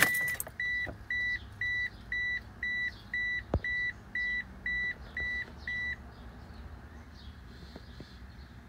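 Mitsubishi Eclipse dashboard warning chime, most likely the seatbelt reminder, sounding after the ignition is switched on. It gives about a dozen steady high beeps, two a second, and stops about six seconds in; a single click is heard partway through.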